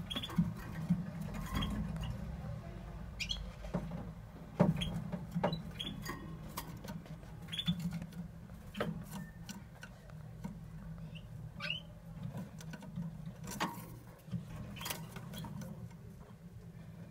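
Topaz canary giving short, scattered chirps, with light clicks and taps between them, over a low steady hum.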